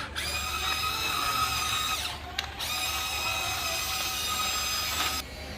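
Small electric motors of a Huina 1594 RC excavator whining steadily as it moves. The whine runs about two seconds, stops briefly, then runs again for about two and a half seconds before cutting off near the end.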